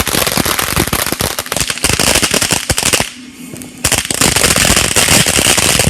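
Fireworks crackling: a dense, rapid string of small pops that breaks off for a moment about three seconds in, then starts again.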